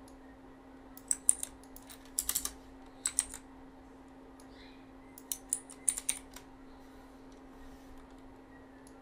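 Computer keyboard being typed on in a few short runs of key clicks with pauses between them, over a faint steady hum.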